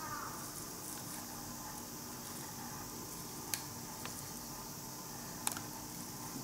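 Handheld camera being moved about, with two sharp handling clicks about two seconds apart over a faint steady hiss.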